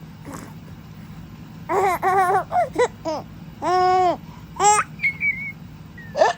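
Five-month-old baby laughing: a run of short high-pitched bursts, then one long held high note, then a couple of short sharp rising cries.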